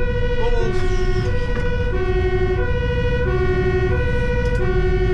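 Fire engine's two-tone siren, heard from inside the cab, alternating between a low and a high note about every two thirds of a second, over the truck's engine and road rumble. It marks a priority-1 emergency run.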